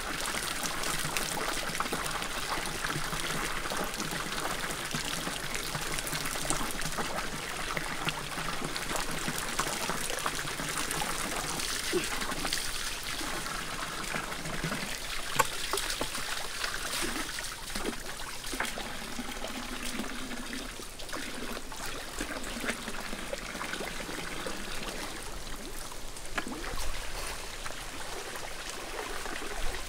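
Water trickling steadily from a bamboo pipe into a bamboo pool full of water.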